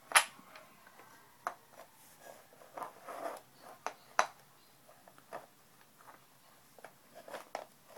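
Wooden toy train track pieces and a block knocking and clicking together as they are handled and fitted into place: scattered short clacks, the sharpest about a quarter of a second in and another about four seconds in.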